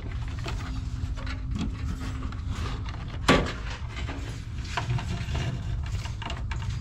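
Electrical wire being fed through a temperature controller's housing and knockout hole: light rustling, scraping and small clicks, with one sharp knock a little under halfway through, over a steady low hum.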